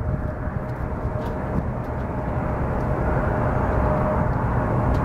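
Engines of a McDonnell Douglas MD-11 trijet at takeoff power during the takeoff roll: a steady jet noise that grows louder as the aircraft comes closer, with a steady tone running through it.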